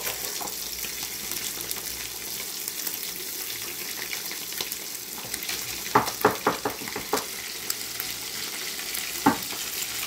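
Fish pieces deep-frying in a pan of oil, with a steady sizzle throughout. A quick run of metal clinks from a fork against the pan comes about six seconds in and one more near the end, as the fish is turned in the oil.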